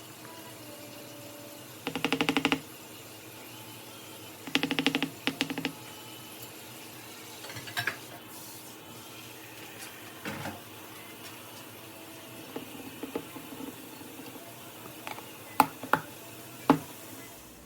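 Electric hand mixer switched on in two short bursts, beating cream cheese, powdered sugar and vanilla into frosting, with a fast rattling hum. A few sharp clicks and knocks of utensils follow near the end.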